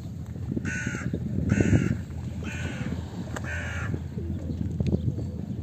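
A crow cawing: four harsh caws about one a second, over a steady low outdoor background rumble.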